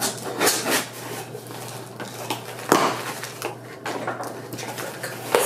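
A cardboard shipping box and its packaging being opened and handled: irregular rustling and crinkling with a few sharp knocks.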